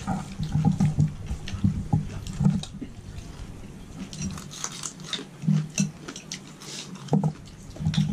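People eating with their hands at a shared meal: chewing and crunching of food such as raw bell pepper and cucumber, with scattered small clicks and taps from dishes.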